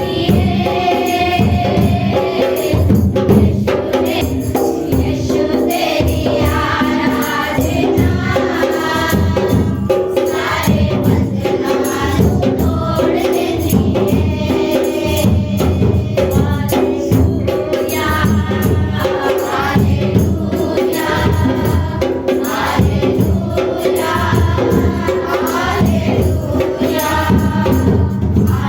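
A congregation singing a Hindi Christian worship song together over a steady rhythmic accompaniment of percussion.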